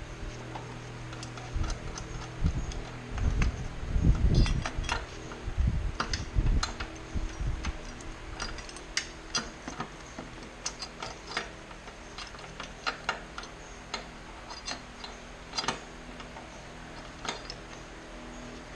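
Irregular small clicks and taps as gloved hands work at a car battery and its fittings, with a few dull knocks in the first several seconds.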